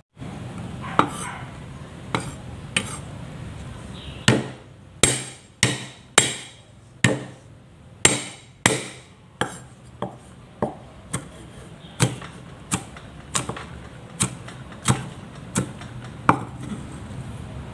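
Knife chopping red chili peppers on a wooden cutting board: about twenty sharp chops, one every second or less, stopping shortly before the end.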